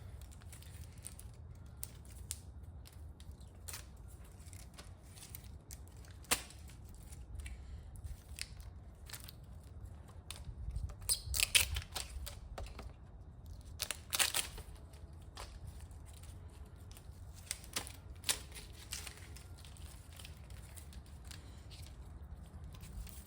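Scattered clicks, taps and crinkling from handling small plastic aero parts with exposed adhesive tape, the loudest bursts about six, eleven, fourteen and eighteen seconds in, over a faint steady low rumble.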